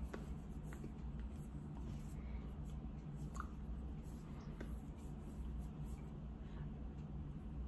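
Steady low room hum with a few faint taps and rustles of hands and sleeves brushing together as the signer moves.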